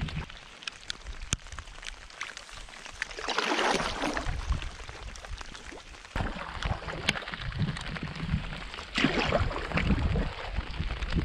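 Canoe paddle strokes swishing through lake water, with two louder strokes about three and nine seconds in, over scattered ticks of light rain falling on the water.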